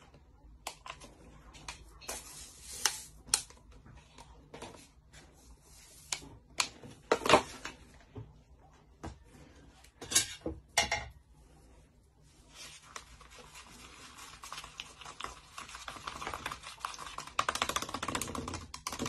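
Scattered light clicks and knocks of cups and utensils being handled, then, about two-thirds of the way in, a steady fast scraping as a metal spoon stirs fruit purée against the inside of a plastic cup.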